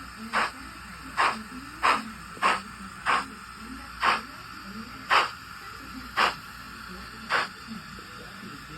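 Steam-exhaust chuffs from the sound decoder of a Bachmann 00-gauge SE&CR Class 01 model steam locomotive, played through its small onboard speaker. There are sharp hissing chuffs about once a second, spreading further apart towards the end, over a steady background hiss.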